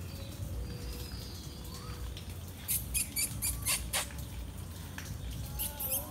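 Indian palm squirrel giving a quick run of sharp, high chirps, about six in just over a second, with a few more near the end, over a low background rumble.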